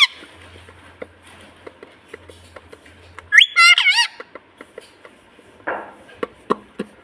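Pet parrot calling: a short burst of shrill, gliding calls about three and a half seconds in, followed by a few faint taps near the end.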